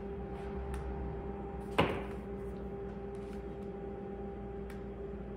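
A paintbrush works white acrylic paint onto a canvas on an easel, giving faint light ticks. One sharp knock comes a little under two seconds in. A steady low hum runs underneath.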